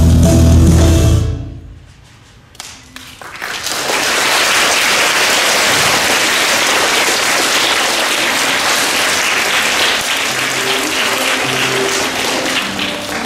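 Dance music with a heavy beat stops about a second in. After a short lull, an audience breaks into steady applause.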